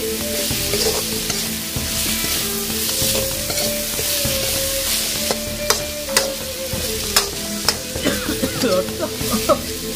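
Chopped field-rat meat and chilli curry paste stir-frying in a wok: a steady sizzle under a metal ladle scraping and clinking against the pan. The clinks come more often in the second half.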